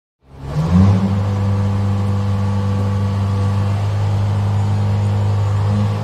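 A mobile crane's engine fades in and runs, rising briefly in pitch at first, then settling into a steady deep hum.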